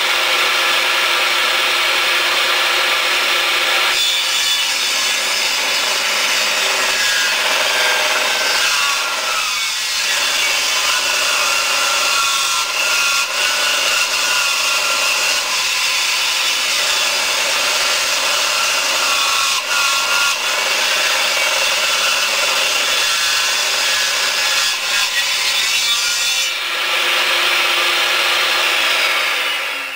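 Power saw cutting steadily along a log, milling it into one-inch boards, with a steady motor tone under the noise of the cut. The sound shifts about four seconds in and again near the end, then stops.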